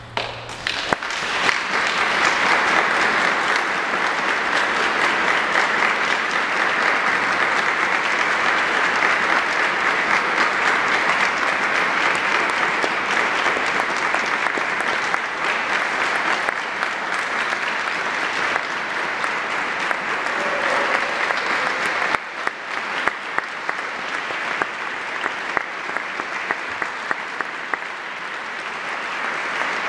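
Audience applauding a choir at the end of a piece: dense, steady clapping that starts right after the final chord, dips briefly about two-thirds of the way through, then builds again near the end.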